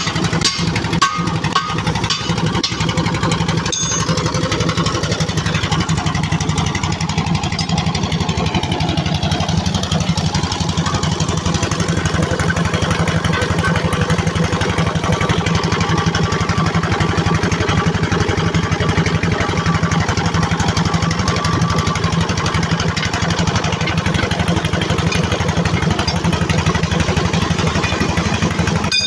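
An engine or motor runs steadily with a fast, even pulsing beat. Several sharp knocks are heard in the first few seconds.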